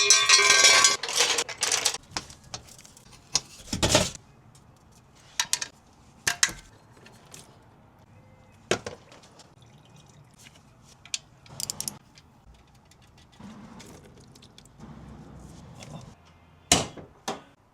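A loud burst of hiss-like noise at the start, then scattered light clicks and clinks, as of small tools or parts being handled.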